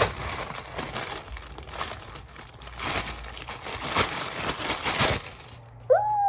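Plastic packaging crinkling and rustling as a pop-it fidget toy is unwrapped, stopping about five seconds in.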